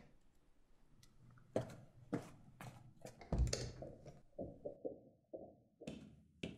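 Footsteps and then a wooden door shutting with a thud about three and a half seconds in, followed by a run of softer, muffled knocks.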